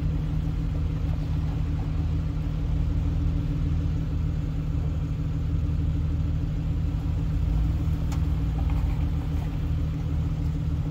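Jeep engine running steadily at low revs while crawling slowly along a rock trail.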